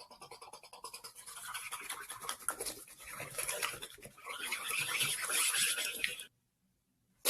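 A person making a fast, rasping rattle of mouth noises, many clicks a second, which cuts off abruptly about six seconds in.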